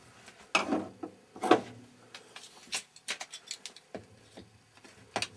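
Hand tool and pipe being handled overhead: two knocks with some rubbing, then a run of light clicks and a sharp knock near the end.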